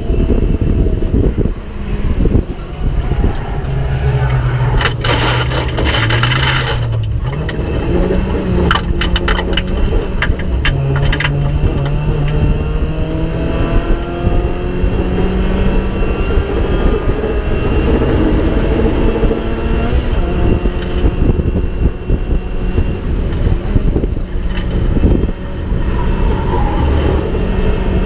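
Onboard sound of a Mazda MX-5 race car's four-cylinder engine at racing speed, its pitch climbing through the revs and dropping again several times, over steady road and wind noise. A run of sharp cracking knocks comes between about five and eleven seconds in.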